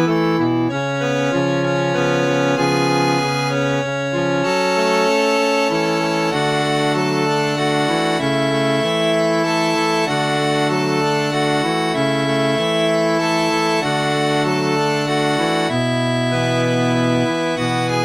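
Reed organ playing a slow, a little melancholy tune in held chords, the low notes moving every second or two beneath sustained upper notes.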